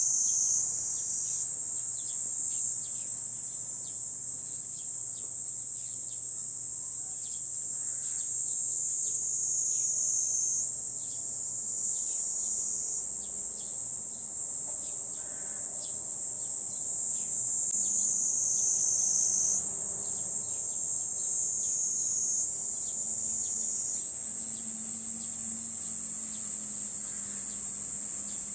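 Cicadas calling in a steady, high-pitched chorus whose pitch shifts slightly every few seconds.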